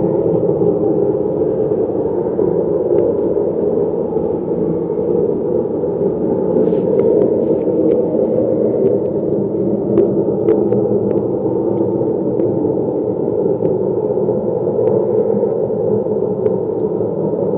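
An unexplained loud, steady drone, a dense rumbling noise centred in the low-middle range, with a few faint clicks over it.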